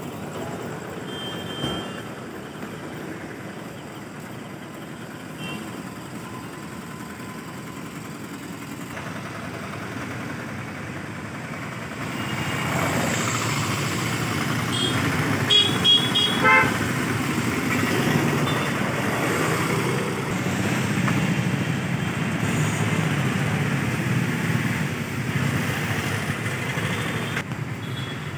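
Busy street traffic: engines and tyres of passing cars, auto-rickshaws and motorbikes, louder from about halfway through. A quick run of short horn toots comes a little past the middle, the loudest sounds, with a brief toot near the start.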